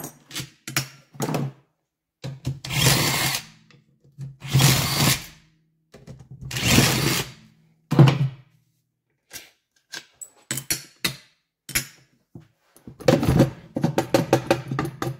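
A handheld power tool, such as a drill-driver, running in four one-second bursts with a motor hum, used on the scooter engine's fasteners. Light clicks of metal parts being handled follow, then a longer rattling run of the tool near the end.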